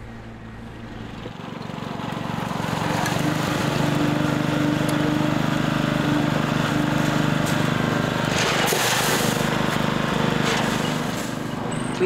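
Small engine of a Muck-Truck quarter-ton powered dumper running steadily, swelling up over the first few seconds. A brief rush of noise comes about nine seconds in.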